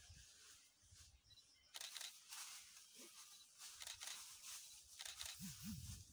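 Faint rustling and crunching of undergrowth as a greater one-horned rhinoceros moves and feeds in dense vegetation, growing louder about two seconds in.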